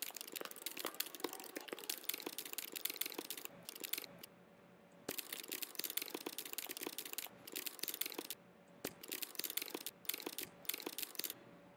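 Computer keyboard typing: a fast run of key clicks, with a pause of about a second around four seconds in and shorter breaks later.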